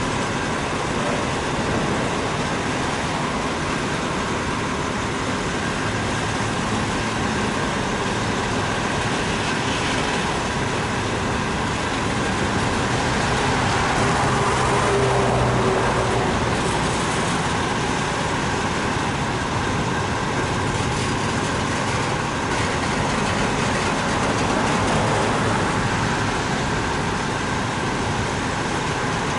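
Double-stack container cars of a BNSF intermodal freight train rolling slowly past: steady noise of steel wheels on rail, swelling slightly about halfway through.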